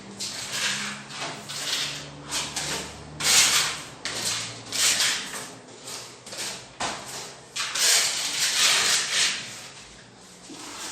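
Steel spatula scraping and spreading filler over a wall in repeated strokes, about one a second.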